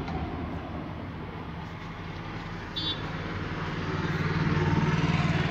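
A motor vehicle engine running with a steady low hum, growing louder over the last second and a half.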